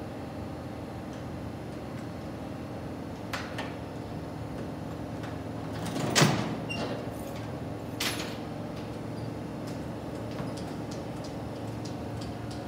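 Steady hum of a stopped R46 subway car. The front cab door is unlatched and swung open with a loud clunk about six seconds in, with lighter knocks a few seconds before and after.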